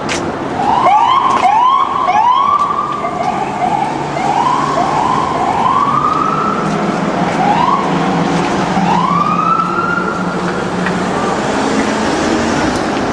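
Several police car sirens sounding together, each a rising electronic whoop. The whoops repeat quickly and overlap, some short and some drawn out, over a steady low vehicle hum.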